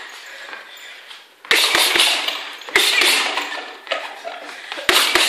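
Boxing gloves punching a floor-to-ceiling double-end ball: three quick flurries of sharp smacks, the first about a second and a half in, each flurry a few rapid hits as the ball rebounds on its cords.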